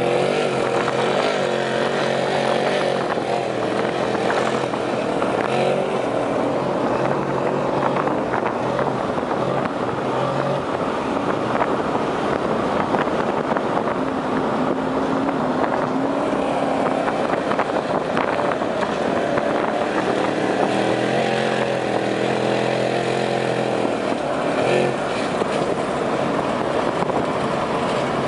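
Off-road trophy truck's engine running hard as it drives on desert dirt, its pitch rising and falling with the throttle, heard from inside a moving chase vehicle over tyre and wind noise.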